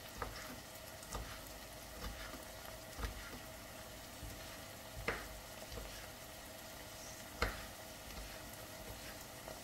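Kitchen knife chopping chouriço on a wooden cutting board: faint, irregular knocks of the blade on the board, roughly one a second, the sharpest about five and seven and a half seconds in.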